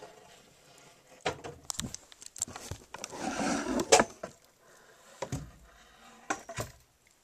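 Knocks and rustling of things being handled close to the microphone: several sharp knocks, a louder rustle just before a sharp knock about four seconds in, then a few more knocks near the end.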